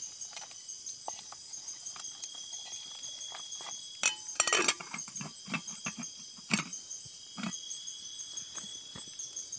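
Night insects trill steadily in the forest. About four seconds in, an aluminium pot lid clatters and rings as it is handled and set onto the cooking pot. Scattered light clicks and knocks come before and after.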